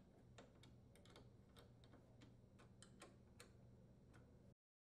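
Faint, irregular metallic clicks, about three a second, of a small wrench working the hex top of a freezer's threaded brake foot as it is screwed down to the floor.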